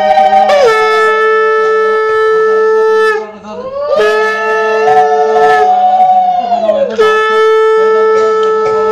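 Conch shell (shankha) blown in long, loud blasts. Each note slides down from a higher pitch and settles on a steady lower tone. There is a brief break about three seconds in.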